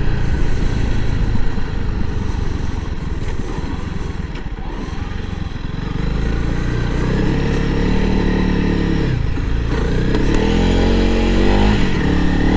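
Honda CRF300L Rally's single-cylinder four-stroke engine under way off-road, its pitch rising and falling as the throttle opens and closes, more plainly in the second half.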